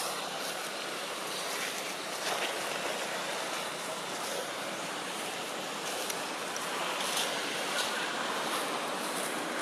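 Steady rushing outdoor background noise, even across low and high pitches, with a few faint high ticks and no animal calls.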